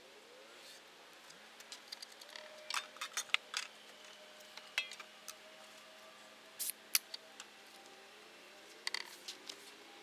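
Irregular light clicks and snaps, clustered a few seconds in, again near the middle and near the end, over a faint steady hum.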